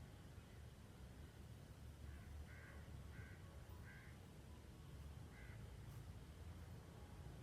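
Faint crow cawing: about five short caws between roughly two and five and a half seconds in, over a low steady rumble.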